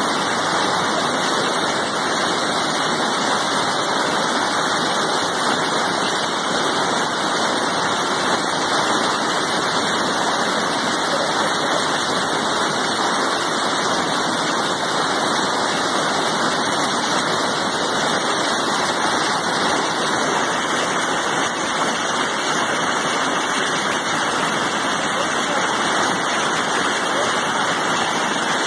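Rushing floodwater of a swollen, overflowing river: a loud, steady wash of churning rapids and standing waves.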